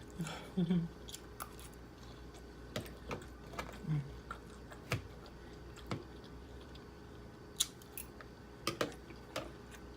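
Close-miked chewing of crispy fried pork lumpia: scattered crunches and wet mouth clicks at an irregular pace, with a couple of short closed-mouth hums.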